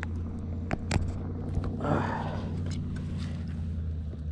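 Steady low motor hum, with a few sharp clicks in the first second and a brief splash-like rush about two seconds in, as a caught bass is released back into the water.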